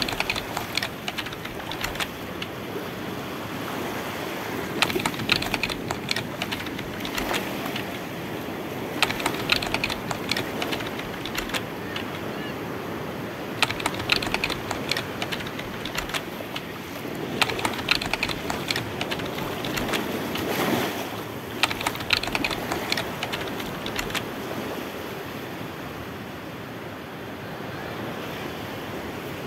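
Computer-keyboard typing sound effect in short bursts of clicks every few seconds, over a steady wash of waves.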